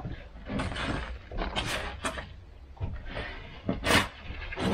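A heavy timber beam being manoeuvred against a concrete-block wall: a run of short scraping and knocking noises, the loudest about four seconds in.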